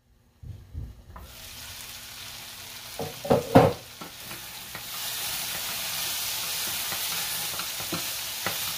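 Diced carrots, bell pepper and celery sizzling in a stainless-steel pan while a wooden spatula stirs them, with a few loud knocks of the spatula against the pan about three seconds in. The sizzle grows louder and steadier about halfway through.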